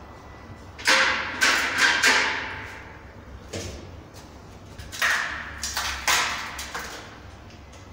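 Clanks and knocks of handling: an aluminium step ladder shifted with a quick run of metallic knocks about a second in, then more scattered knocks and taps as hands work at the edge of a wall mirror.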